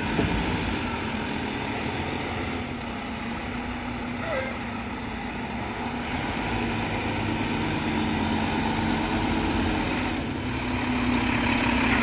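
Mack LEU garbage truck's engine running as the truck drives slowly up, getting louder over the last couple of seconds as it nears.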